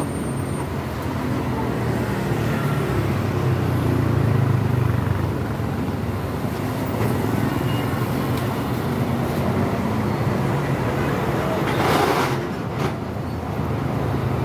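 Motor vehicle engine running nearby, a steady low rumble that swells a little about four seconds in, with a brief noisy rush about twelve seconds in.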